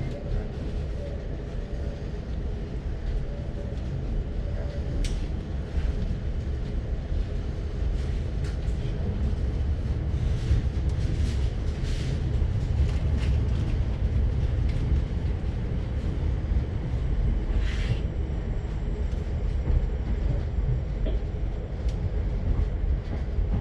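Passenger train running on the track, heard from inside a carriage: a steady low rumble with scattered clicks and knocks from the wheels and rail joints.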